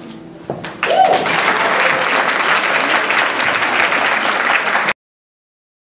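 Audience applause, many people clapping, breaking out about a second in as the song ends and going on steadily until it cuts off suddenly near the end.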